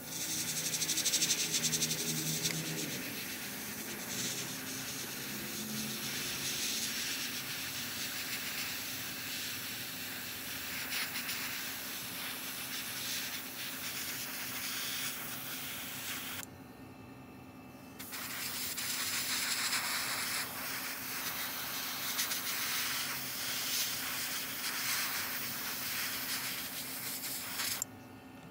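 Iwata HP-CS gravity-feed airbrush hissing as it sprays black acrylic paint thinned with 20% thinner at about 22 psi. It runs in two long spells with a short break a little past halfway.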